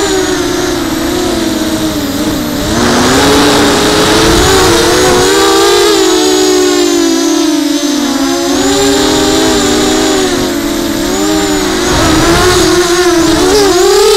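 FPV quadcopter's electric motors and propellers whining as heard from its onboard camera, the pitch rising and falling with throttle changes. Low rumbles of wind buffeting the microphone come about three seconds in and again near the end.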